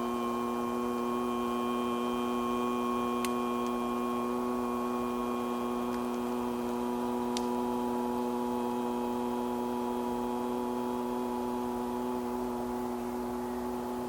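A man's voice holding one long, steady 'ooh' tone from the belly, a qigong healing sound, with a slight shift in pitch about six seconds in.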